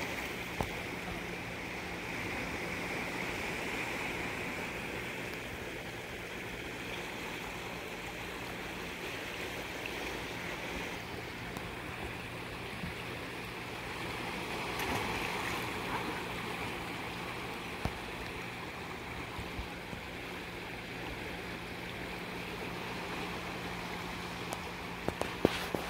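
Steady rush of flowing water below a dam, with a low steady hum underneath and a few short clicks, the clearest of them near the end.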